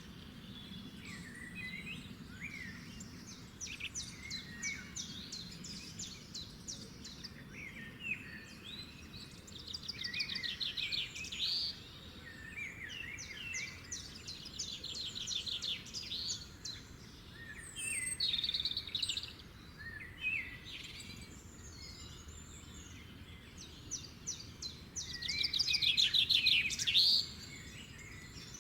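Songbirds singing: fast trills of rapidly repeated notes and short chirps and whistles, several calls overlapping, the loudest trill near the end, over a faint steady background hiss.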